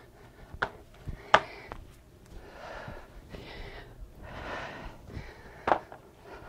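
A person breathing hard while doing dumbbell burpees, two long breaths audible, with a few sharp knocks on the floor, the loudest about a second and a half in.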